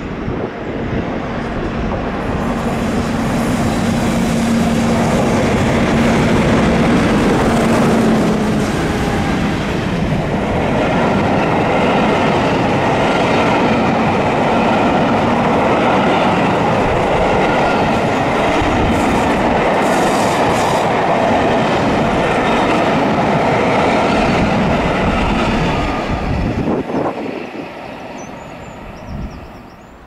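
A train hauled by a pair of British Rail Class 50 diesel locomotives passes by. A steady engine note is heard for the first several seconds, and the wheels clatter over the rails. The sound builds up quickly, stays loud for over twenty seconds, then fades away near the end.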